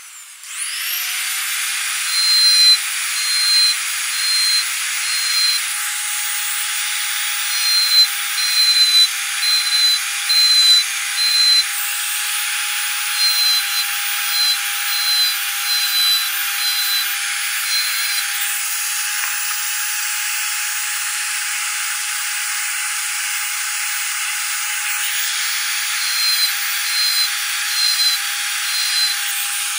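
An electric drill used as a small lathe spins up about a second in and runs with a steady high whine, while a handheld rotary tool's bit carves tread grooves into the spinning wooden wheel. The cutting comes in repeated short bursts, with a pause partway through.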